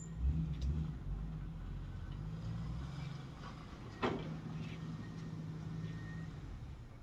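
A vehicle engine running steadily with a low hum, dying away near the end. A single sharp clank about four seconds in.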